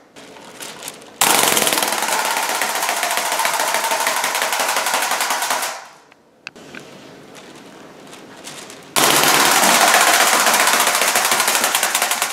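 Wind-up flying bird toy beating its wings on the floor, a fast rattling clatter. It comes in two runs: one of about four and a half seconds starting about a second in, and another starting about nine seconds in.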